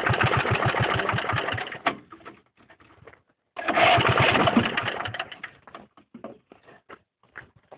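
Go-kart's small engine turning over in two bursts, about two seconds and then about a second and a half, each with a rapid even chugging, and each stops without it staying running. The second burst trails off into scattered pops and ticks.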